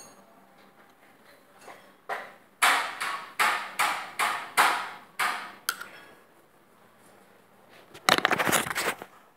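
A run of sharp knocks, about eight or nine at two to three a second, then a short rapid rattle near the end.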